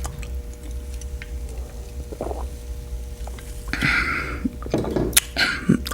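Close-miked mouth sounds of eating and drinking: a few soft smacks, breaths and brief slurp- or swallow-like noises, over a steady low hum.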